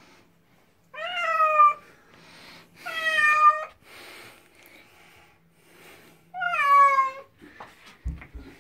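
Domestic cat meowing loudly three times, each call dropping in pitch, protesting at being carried to the bath. A couple of low thumps near the end.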